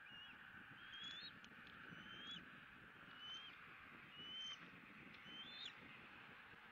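Faint, high, thin whistled calls from a bald eagle, five or six short notes about a second apart, each sliding up and then holding, over a steady hiss.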